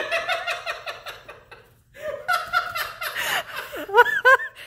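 Laughter in two long bursts of quick pulses with a short pause between them, ending in a few high rising-and-falling whoops.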